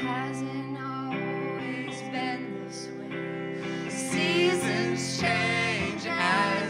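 Live song: an electric guitar plays sustained chords under a woman's sung vocal, and the singing grows louder about four seconds in.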